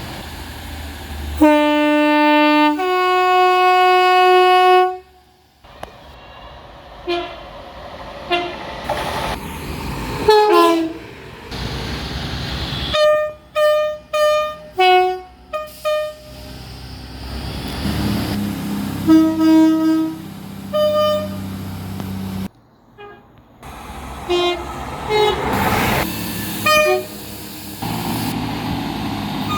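Train horns sounding in a run of separate recordings: a long blast of about three and a half seconds that steps up in pitch partway, then bursts of short toots and blasts through the rest.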